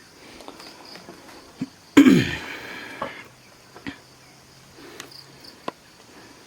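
A native pig gives one short, loud grunt about two seconds in, falling in pitch. Small knocks and faint insect chirping follow.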